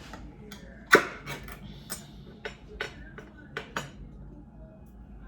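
Metal can being worked open by hand: a sharp click about a second in, then a run of lighter clicks and taps.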